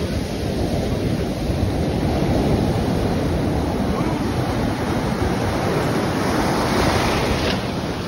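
Ocean surf breaking and foamy wash rushing through the shallows, with wind buffeting the microphone. The rush swells through the middle and its hiss drops off sharply near the end.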